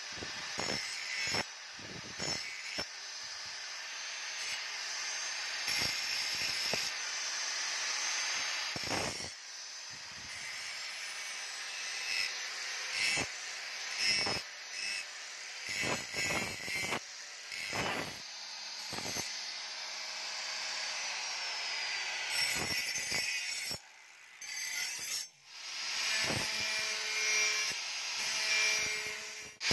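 Electric angle grinder with a sanding disc grinding a steel knife blade: a high grinding hiss broken by many short, scraping passes as the disc is worked along the bevel. It drops out briefly near the end.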